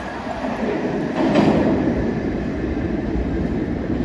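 New York City subway 6 train pulling out of the station and receding into the tunnel, a steady rumble of wheels on rail that is a little louder about a second in.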